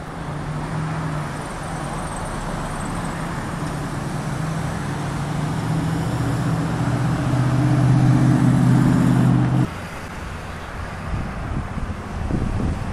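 Car engine hum and road noise from a moving car, growing louder for most of the stretch, then cutting off suddenly about ten seconds in. Afterwards quieter outdoor noise with a few low thumps.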